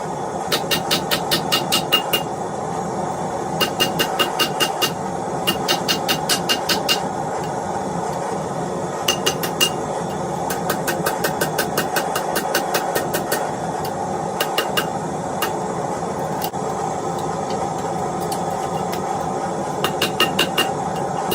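Blacksmith's hammer striking steel on an anvil in quick runs of blows, about six a second, many with a ringing note, pausing between runs. A steady drone runs underneath throughout.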